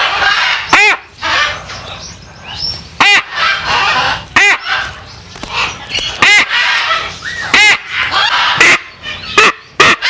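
Macaw squawking loudly and repeatedly, about eight harsh calls a second or two apart, while held restrained in a towel for a wing clip.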